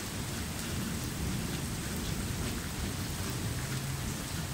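Steady rain: an even hiss with a low rumble underneath.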